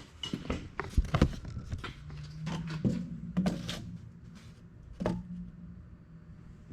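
Scattered knocks and scuffs of things being handled and set down, loudest about a second in and again near five seconds, with a low steady hum starting about two seconds in.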